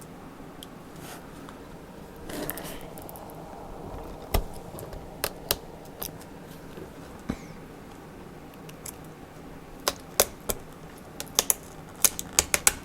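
Small sharp clicks and taps of fingers on the laptop's plastic and the display connector while adhesive tape is peeled back, with a short rustle about two and a half seconds in. The clicks come scattered, then bunch up near the end.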